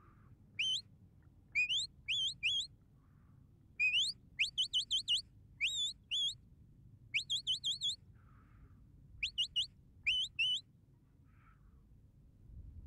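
A sheepdog handler's whistle commands to the working dogs: about eight short phrases of shrill whistled notes, each phrase a quick rising note or a run of rapid swooping notes, separated by brief pauses.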